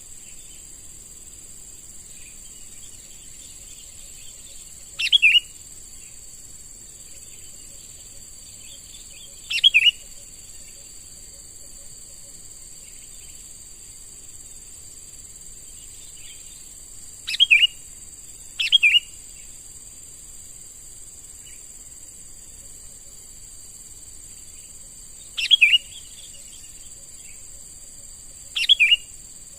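Sooty-headed bulbul (kutilang) giving short, falling calls, six times, several seconds apart, over a steady high insect drone.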